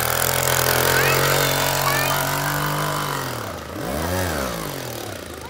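Small engine of a motorized bicycle running steadily while pulling a man on a garden cart; about four seconds in its pitch briefly rises and falls again.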